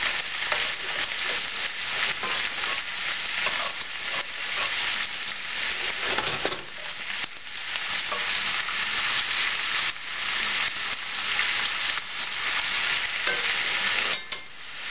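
Diced Spam frying in bacon grease in a skillet: a steady sizzle, with the clicks and scrapes of a utensil turning the cubes to brown them on all sides. The sizzle dips briefly near the end.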